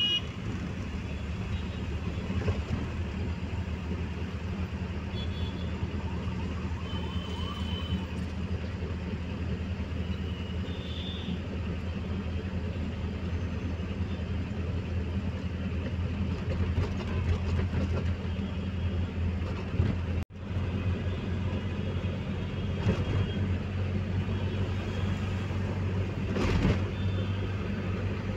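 Steady engine and road noise heard from inside a moving taxi's cabin: a low, even hum that breaks off for an instant about twenty seconds in.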